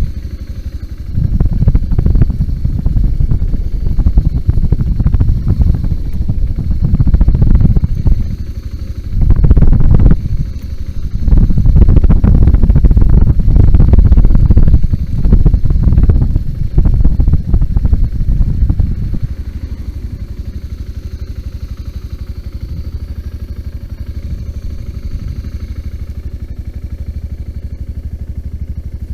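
BMW G 650 GS motorcycle's single-cylinder engine running while the bike is ridden off-road, loud and uneven with surges and some clatter. About two-thirds of the way through it settles to a steadier, quieter sound.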